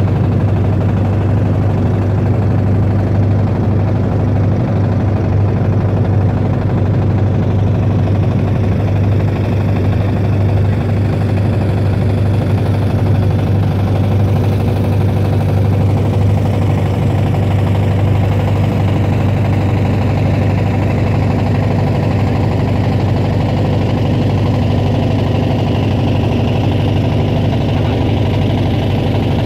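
Boat engine running steadily under way, a loud, even low hum with no change in pitch.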